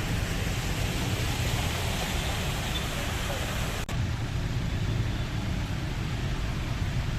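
Steady traffic noise from vehicles on a flooded road, an even rumble and hiss; about four seconds in the sound changes abruptly and loses much of its high hiss.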